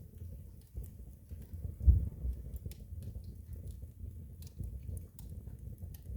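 Wood fire burning in a fireplace: a steady low rumble of flames with scattered sharp crackles, and one louder pop about two seconds in.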